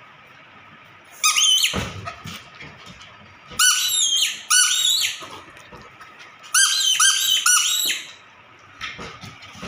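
Spiky rubber squeaky ball squeezed by hand, giving short, high squeaks in three bouts of several squeaks each.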